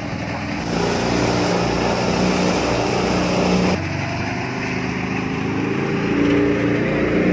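Engine of a rice power thresher running steadily, with an abrupt change in its sound a little under four seconds in.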